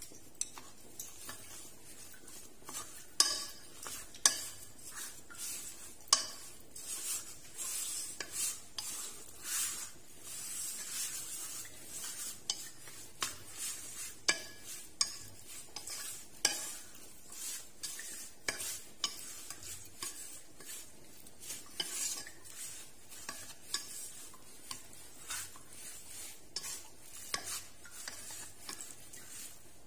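Metal spoon stirring raw sliced pork belly with seasonings in a non-stick pot, mixing the marinade through the meat, with irregular clicks and knocks of the spoon against the pot.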